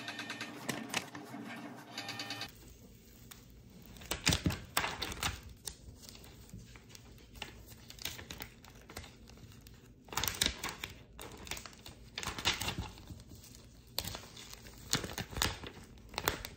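Background music for the first couple of seconds, then cuts off. After that come bursts of crinkling and crackling as the excess white heat-transfer vinyl is peeled away from the lettering on its clear carrier sheet.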